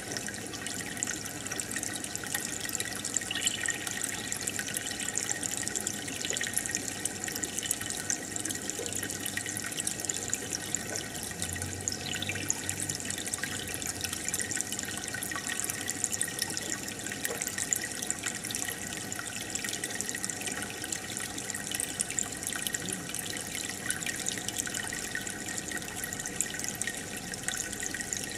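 Aquarium filter and air bubbles running: a steady splashing, bubbling water hiss with many small pops as bubbles break at the surface.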